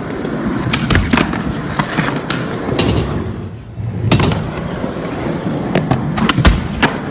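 Skateboard wheels rolling, with several sharp clacks and thuds from the board and trucks striking the riding surface, the loudest about a second in, about four seconds in and near the end.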